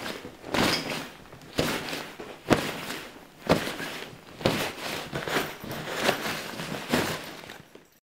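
Clothes being stuffed into a nylon backpack: a rustling shove of fabric about once a second, eight times, stopping just before the end.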